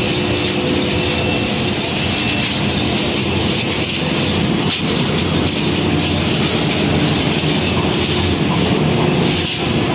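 Heavy machinery running with a loud, steady mechanical rattle and rumble, faint steady tones running through it, and one sharp click near the middle.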